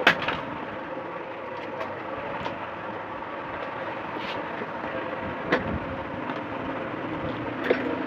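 Handling sounds while a TV's power cord is plugged in: a sharp click right at the start, then a few fainter clicks and knocks, over a steady background hum.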